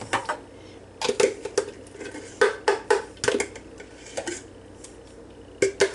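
A string of sharp clinks and knocks of a utensil against a jar as mayonnaise is scraped out into a mixing bowl, with a short pause before a few more near the end.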